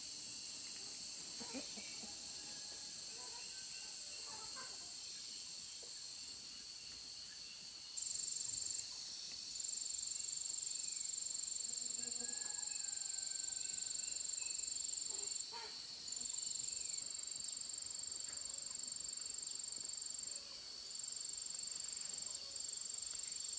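Steady high-pitched chirring of insects, with one louder, shriller insect note that starts about eight seconds in and cuts out briefly a few times.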